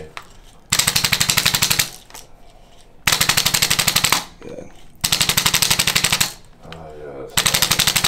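Corded electric chiropractic adjusting instrument with a forked tip, percussing the lower lumbar spine in four bursts of rapid taps, roughly ten a second. Each burst lasts about a second, with short pauses between, mobilising compressed lower lumbar segments.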